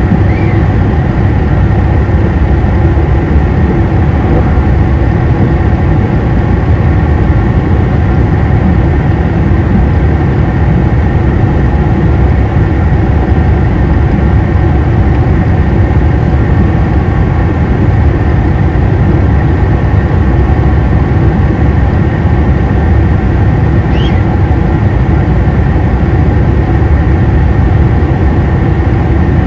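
Inside a KiHa 261 series 5000 diesel railcar: the diesel engine and running gear make a steady, loud drone, with low rumble and several constant engine tones that neither rise nor fall. Near the end, a brief high squeak rises and falls away.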